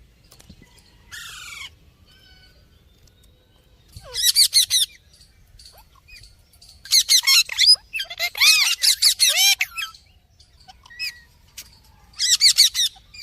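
Baby parrot calling in several separate bursts of rapid, high, squawky chirps, with quiet gaps of a second or more between them; the longest burst comes about eight seconds in.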